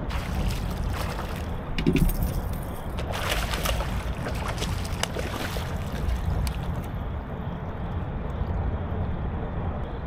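Hooked smallmouth bass thrashing at the surface beside a kayak and being scooped into a landing net: splashing and sloshing water over a steady low rumble. The splashing comes in a run from about two seconds in to just past the middle, then settles.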